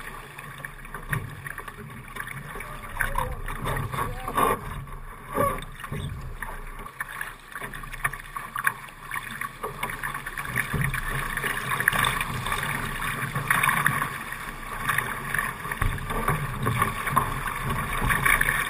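Water rushing and splashing against the hull of a Laser sailing dinghy under way in choppy water, a continuous wash that grows somewhat louder in the second half.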